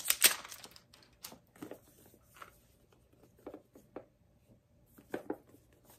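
Handling noise from a small tea gift box and its packaging: a sharp rustle just after the start, then scattered soft clicks and rustles as the contents are moved about.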